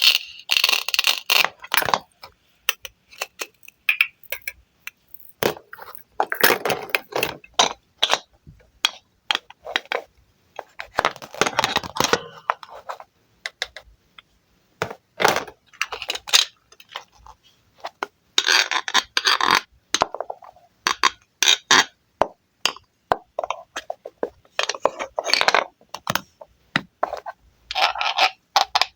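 Knife cutting wooden toy fruit on a board: sharp clicks and taps throughout, with a longer scraping sound lasting a second or two every few seconds.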